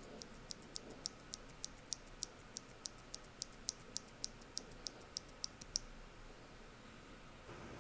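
Light, sharp clicks from a lubed Tealios V2 linear key switch being pressed repeatedly, about three or four a second, stopping about six seconds in.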